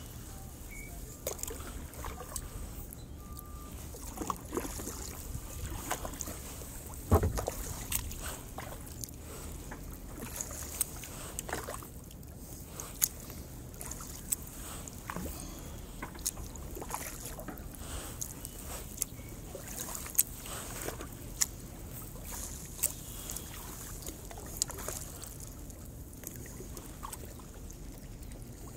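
Kayak paddling on calm water: the paddle dipping and dripping, with irregular sharp ticks and splashes and a louder knock about seven seconds in.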